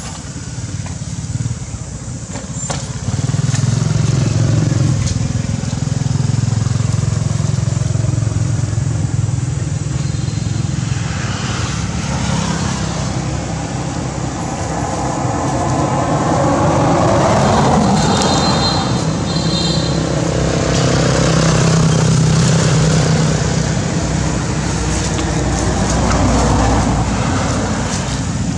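Road traffic: motor vehicle engines running with a steady low hum, and vehicles passing by, so the sound swells and fades several times.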